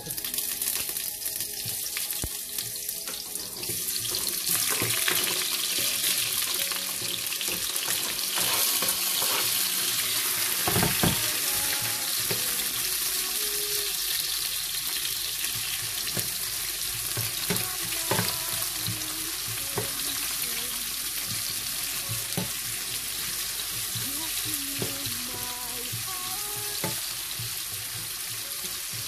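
Sliced onions sizzling in hot oil in a non-stick frying pan as they are stirred with a wooden spatula: a dense, steady frying hiss, loudest in the first half.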